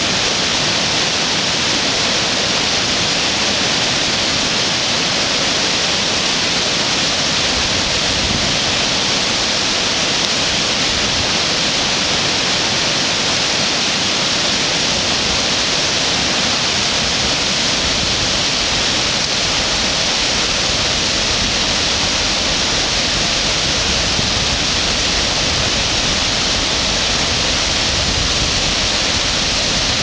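Rushing river water: a steady, loud roar of whitewater rapids and water pouring over a low dam.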